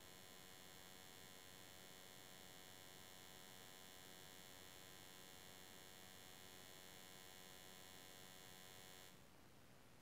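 Near silence with a faint, steady hum made of many even tones, which cuts off suddenly about nine seconds in.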